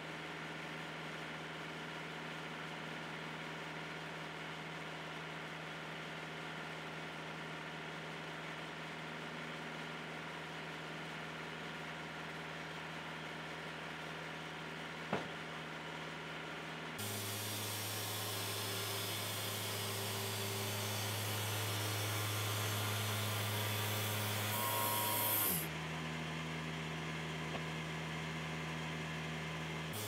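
Portable Wood-Mizer band sawmill's engine running steadily, with a single knock about halfway through. A little past halfway it gets louder with a steady hiss, which cuts off suddenly a few seconds from the end while the engine keeps running.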